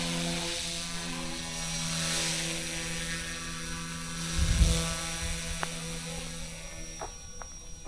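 Eachine E120S RC helicopter flying, its electric motor and spinning rotors making a steady buzzing whine that shifts slightly in pitch as it manoeuvres. A brief low rumble about halfway through, and a few sharp clicks near the end.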